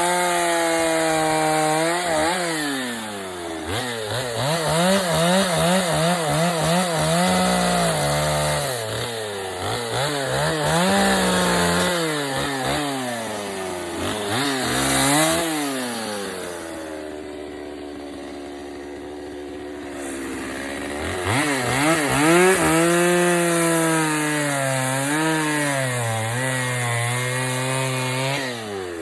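Stihl 025 two-stroke chainsaw with a 16-inch bar cutting into a log, its engine revving up and falling back over and over as it bites into the wood. About halfway through it drops to a steady idle for several seconds, then revs and cuts again.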